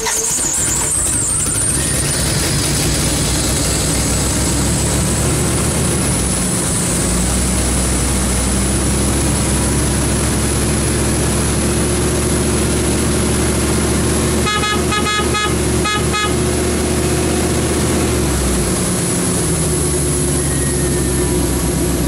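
Dodge Ram pickup's V8 engine running steadily just after starting, now firing on new spark plugs in place of gas-soaked ones. A high whine rises over the first couple of seconds, and a brief run of pulsing beeps comes about fifteen seconds in.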